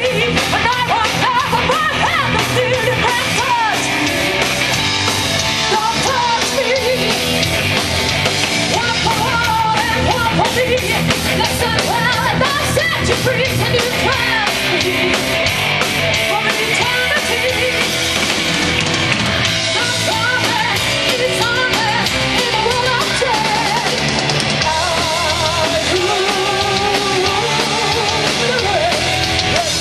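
A rock band playing live: electric guitars and a drum kit, with a singer's voice over them.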